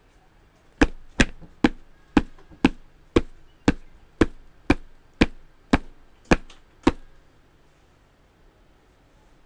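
Cartoon footstep sound effects: about a dozen sharp, hard steps at an even pace of roughly two a second, then they stop.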